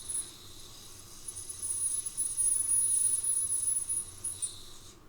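Small electric motor of an Oxford Rail Adams Radial model locomotive running briefly on a 9-volt battery, a steady high-pitched whine that stops shortly before the end. The bearings have just been oiled, yet the motor still makes a noise that the owner takes for a motor problem.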